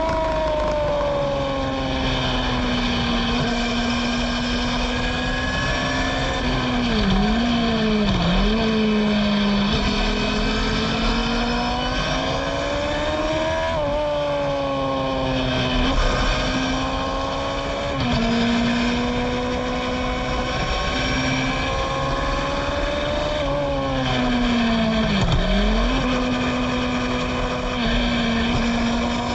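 Formula Gloria's 1000 cc Yamaha engine at racing speed, heard from the cockpit. Its note rises and falls with acceleration and braking, with sharp dips and recoveries in pitch at gear changes about seven and eight seconds in, around fourteen to eighteen seconds, and again near twenty-five seconds.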